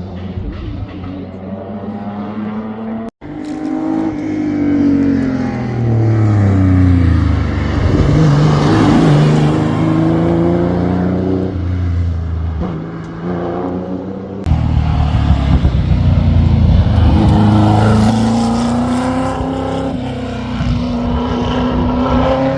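Historic racing cars' engines passing at speed. One engine note falls in pitch as a car goes by. After an abrupt cut, another car accelerates with its note climbing steadily.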